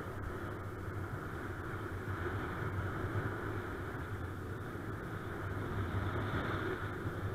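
Steady rushing wind noise from airflow over the microphone of a camera on a flying paraglider's harness.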